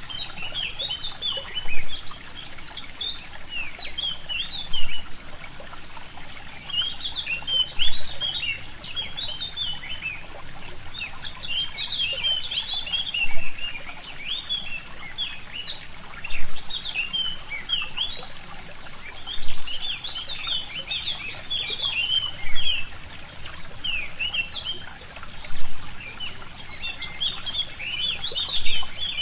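A small stream trickling steadily while many small forest birds twitter in rapid, overlapping chirps that come in bursts. A short louder pulse recurs about every three seconds.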